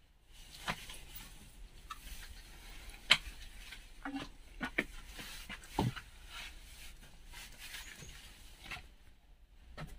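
Footsteps and scuffing on loose stones and rock as people clamber through a narrow rocky passage: irregular scrapes, clicks and knocks, the sharpest about three seconds in.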